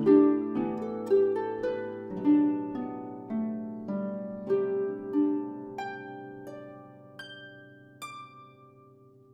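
Background music of a harp playing a run of plucked notes, each ringing out. The notes come about two a second at first, then thin out and fade away toward the end.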